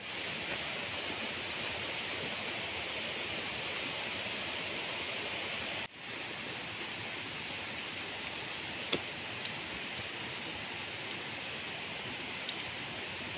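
Steady outdoor ambient hiss with a thin, steady high tone above it, briefly dipping about six seconds in.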